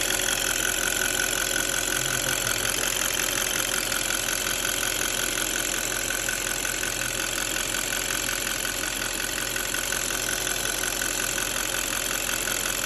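D8 engine idling steadily with a fast, regular ticking.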